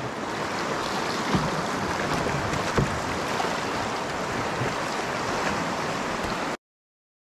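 Steady rush of river rapids in high water, with a couple of brief knocks, cutting off suddenly about six and a half seconds in.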